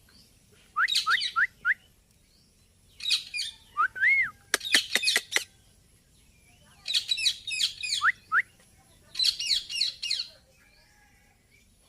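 Indian ringneck parakeet calling in about five short bursts of shrill chirps and squawks, some with quick rising whistles, and a fast run of sharp clicks near the middle.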